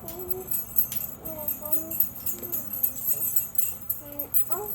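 Plastic toy keys and locks jingling and clicking as they are handled, with short wavering voice-like sounds over them.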